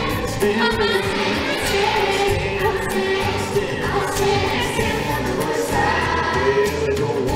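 A worship song with a group of voices singing over the music, steady throughout.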